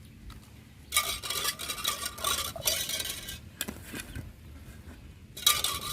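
A metal utensil scraping and clinking against a cooking pot, in a long stretch of scraping followed by a short one near the end, with a faint ringing from the metal.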